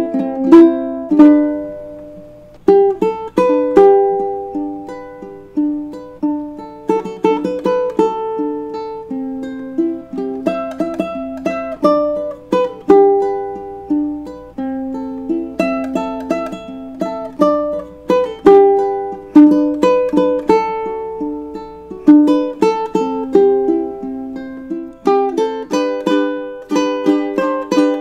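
Ukulele played solo, strummed chords and picked melody notes that ring out and fade, with a brief pause about two seconds in.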